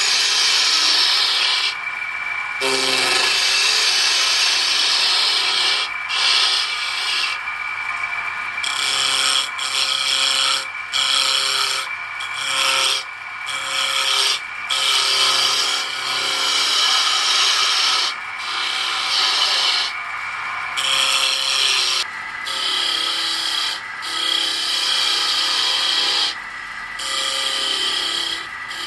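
Electric woodworking machine running steadily while its cutter works a beech wood blank. The cutting comes in spells of a few seconds, each adding a harsh rasping hiss over the motor's steady whine, with short breaks where only the motor is heard.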